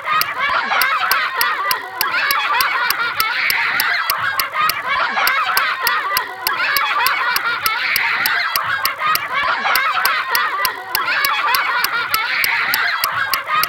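Looping sound effect: sharp, regular clicks about three a second over a dense, busy layer of higher sound, the whole pattern repeating about every four and a half seconds.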